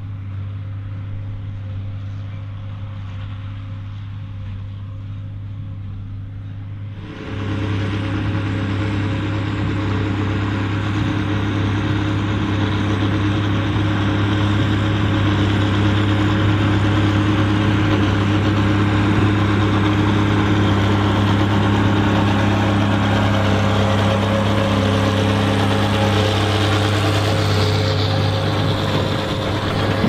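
Ford TW-30's turbocharged six-cylinder diesel engine running steadily under load while pulling a New Holland 4860S large square baler, with the baler's machinery running. The sound becomes abruptly louder and fuller about seven seconds in, and a high whine drops in pitch near the end.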